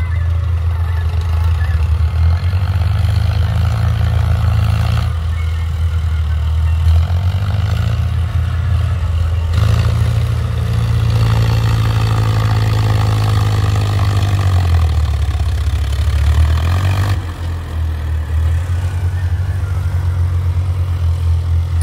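Powertrac Euro 55 tractor's diesel engine working under load as it drags a karaha earth-leveling scraper through sand. The revs rise and fall several times, with a sudden step up about halfway through and a drop a few seconds later.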